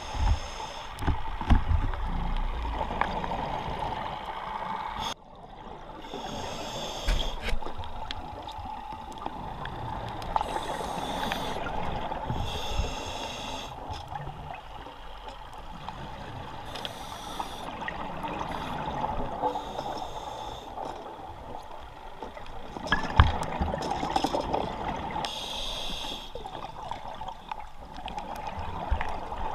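Underwater scuba regulator breathing: a hiss with each inhalation and bubbling with each exhalation, repeating every few seconds. A few deep low thumps stand out, one about a second in and the loudest late on.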